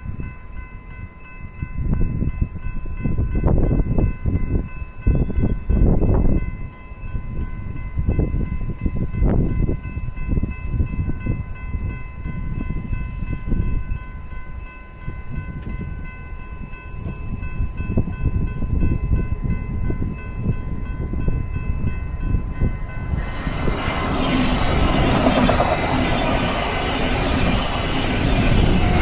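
Electronic level-crossing bell ringing steadily over an uneven low rumble. From about 23 seconds in, a VIA Rail Siemens Venture train, pushed by a Siemens Charger SCV-42 locomotive, passes close by with a loud rushing of wheels on rail.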